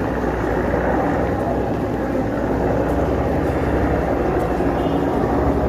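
Fishing boat's engine running steadily with a continuous low drone.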